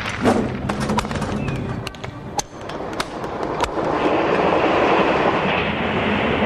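A train running on rails: irregular clicking and clattering of the wheels, then a louder, steady rushing noise from about four seconds in.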